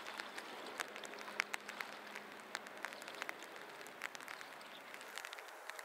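River water trickling and splashing around wading legs: a steady hiss dotted with many small, irregular sharp splashes.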